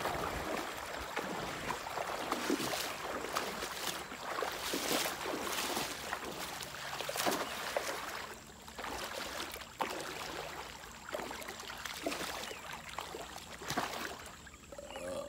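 Shallow river water splashing and sloshing as a man wades and throws a cast net, with many short splashes from the net and his legs moving through the water.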